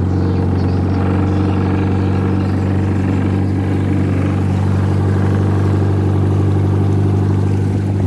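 Toyota Kijang 4K four-cylinder car engine powering a klotok river boat, running steadily under way with an even hum.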